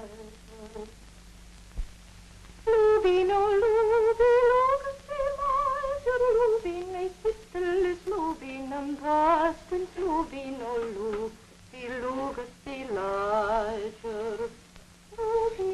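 A slow solo melody in long held notes with a strong, wavering vibrato. It starts a few seconds in and rises and falls in short phrases with brief breaks between them.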